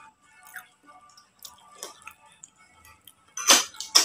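Quiet eating at a table: faint chewing and small scattered clicks, then a sharp clink of a spoon against a bowl about three and a half seconds in and another at the very end.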